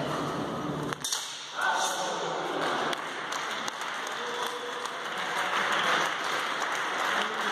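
Indistinct talk of spectators, fencers and judges, with a single sharp knock about a second in.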